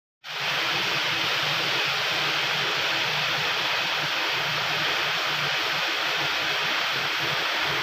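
Capsule printing machine running: a steady mechanical hiss with a low, flickering hum, cutting in abruptly a moment in.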